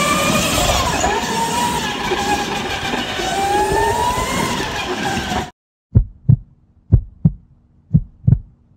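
Go-kart motors running, several pitches rising and falling as karts speed up and slow down. About five seconds in the sound cuts off and a heartbeat sound effect begins, low thumps in lub-dub pairs about once a second over a faint hum.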